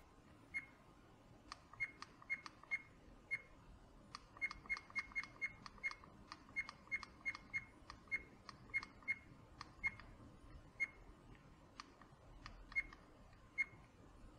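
Buttons of a SilverCrest SAK4000A1 action camera pressed repeatedly, each press a faint click with a short high beep from the camera's own speaker as its menus are stepped through. The presses come irregularly, some in quick runs of three or four.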